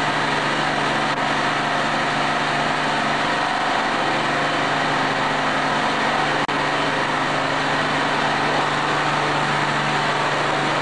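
Oil-free rotary piston compressor running steadily with a constant machine hum, broken by a very brief dropout about six seconds in.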